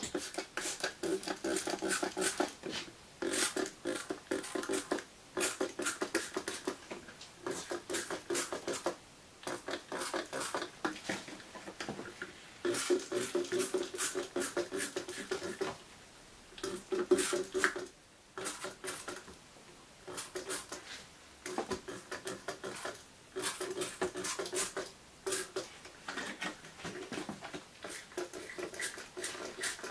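Plastic trigger spray bottle squeezed over and over, spritzing water in runs of quick clicks with short pauses between.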